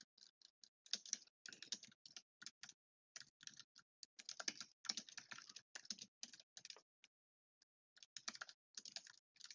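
Faint typing on a computer keyboard: runs of quick key clicks broken by short pauses, with a longer pause about seven seconds in.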